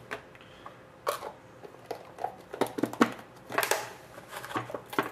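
Trading cards and their small cardboard box being handled on a glass tabletop: a string of short taps, slides and rustles, the sharpest about three seconds in.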